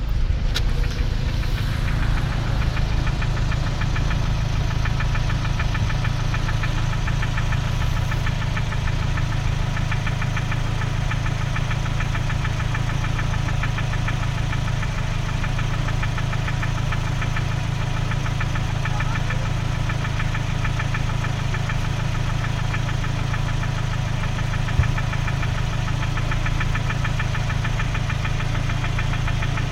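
Ford Focus II's 1.6-litre petrol engine idling with no load, with a fast, even metallic ticking knock over its steady running; the owner does not know its cause. One sharper click sounds about 25 seconds in.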